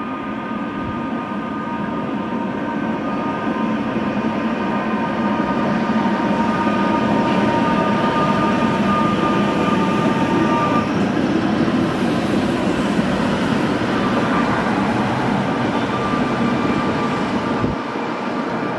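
Tatra-bodied rail-grinding tram passing while grinding the rails: a harsh, steady grinding rasp with high whining tones over it. It grows louder as it approaches and peaks about halfway through; the whine drops out briefly and then returns.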